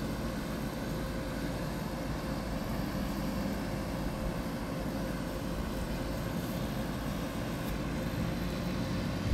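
Steady background hum with a low rumble underneath and no speech.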